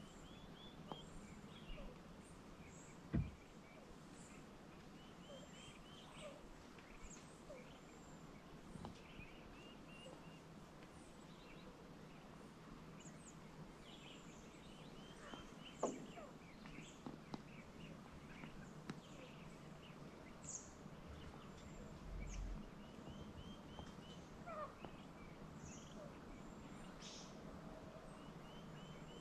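Faint outdoor birdsong: several birds calling in short repeated chirping phrases, over a low steady hum. Two sharp knocks stand out, one about three seconds in and one about sixteen seconds in.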